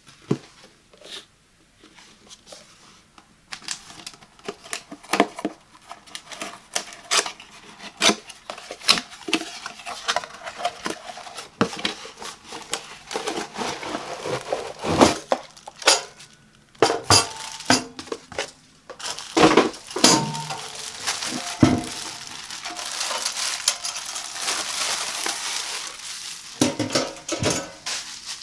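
Cardboard box being unboxed by hand: a string of taps, knocks and scrapes as the box is handled and opened. About three-quarters of the way through comes a longer stretch of rustling and scraping as a metal coffee-pod drawer unit is slid out, with light metallic clinks as it is handled and set down.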